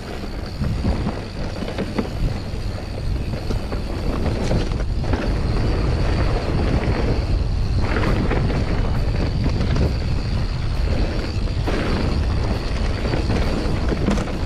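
Mountain bike riding a dirt forest trail: steady wind rumble on the microphone over tyre noise on the loose dirt and pine needles, with small clicks and rattles from the bike.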